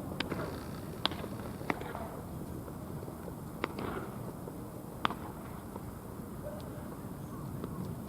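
Outdoor baseball stadium ambience: a steady low background murmur with a handful of sharp knocks at irregular moments, the loudest about five seconds in.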